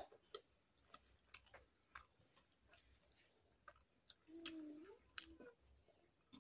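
Faint wet chewing and lip-smacking clicks from someone eating steamed momo dumplings, with a short hum near the middle.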